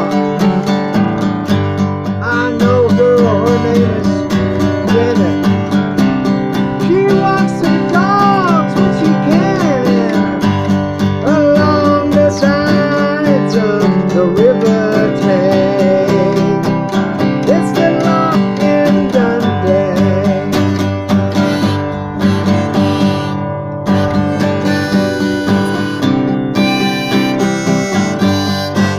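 Acoustic guitar strummed steadily with a harmonica, played from a neck rack, carrying a melody over it.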